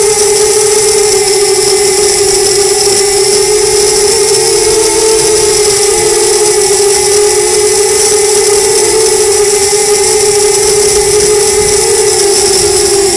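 FPV quadcopter's brushless motors and propellers humming loudly and steadily as it hovers, heard close up through the onboard camera's microphone; the pitch wavers a little as the throttle is adjusted.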